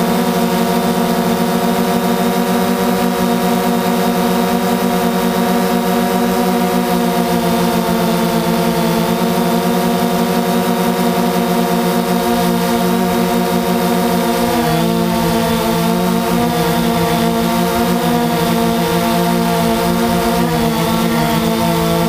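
DJI Phantom 2 quadcopter's four electric motors and propellers humming steadily in flight, with a beating drone of several close pitches. The pitch shifts slightly about two-thirds of the way through and again near the end as the rotor speeds change.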